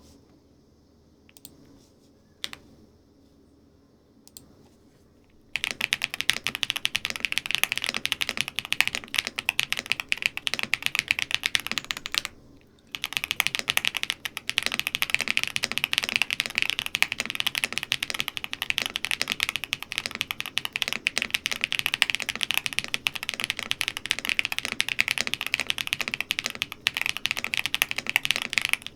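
QK75N mechanical keyboard with BSUN Cliff tactile switches and all foams installed, being typed on. A few single key presses at first, then fast continuous typing from about five seconds in, with a brief pause near the middle.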